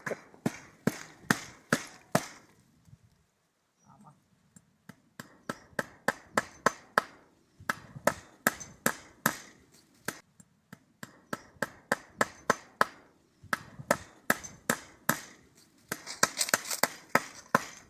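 A hammer striking in quick runs of sharp blows, about three a second, with short pauses between runs.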